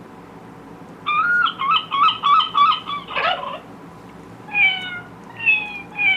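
Electronic sound book playing recorded animal sounds through its small speaker. About a second in comes a fast warbling trill lasting about two seconds, then three short falling calls near the end.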